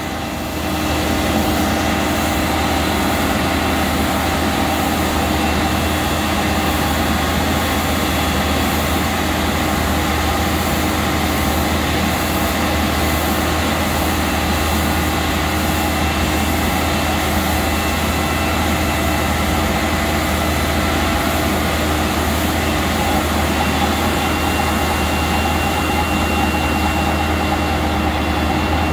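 A Vac-Con vacuum truck's engine and vacuum system running steadily, pulling suction through a tube lowered about 28 feet from the truck down to the river. The sound builds up in about the first second, then holds steady.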